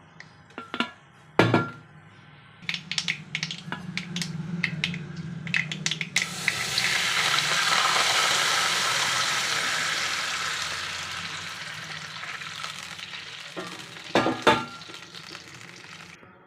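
Food sizzling in hot oil in a pan. The sizzle starts suddenly about six seconds in, after a run of utensil clicks and knocks on the pan, then slowly dies down. A couple of sharp knocks come near the end.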